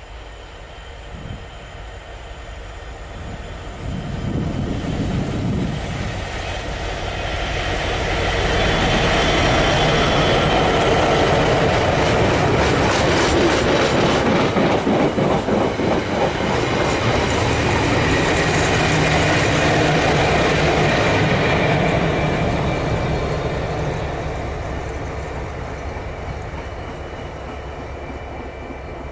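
GBRf Class 69 diesel locomotive, with its EMD 12-710 engine, approaching and passing at line speed with a short train of wagons. The engine grows louder over the first few seconds, then the wagon wheels clatter rapidly over the rail joints as the train goes by, and the sound fades as the tailing locomotive draws away.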